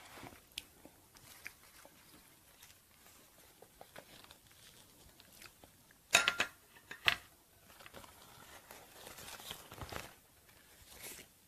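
A banana leaf crinkling and rustling as it is handled and peeled away from a Cambodian crepe, with scattered small clicks. The loudest sounds are two sharp crackles, about six and seven seconds in, followed by a softer rustle.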